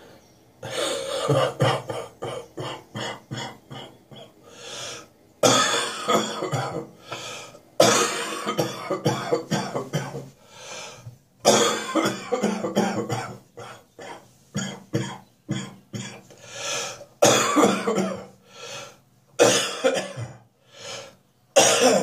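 A person with a lingering spring cold coughing in repeated fits. There are about seven bouts, each starting loud and breaking into a run of shorter, weaker coughs, with brief quiet gaps between.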